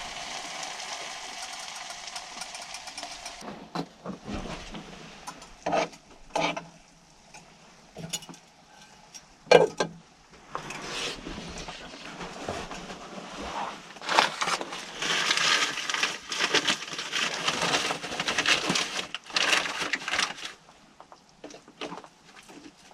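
Food sizzling in a pan for the first few seconds, then stopping. After that come knocks and clinks of cookware and cutlery, and a long stretch of scraping and clattering in a pan.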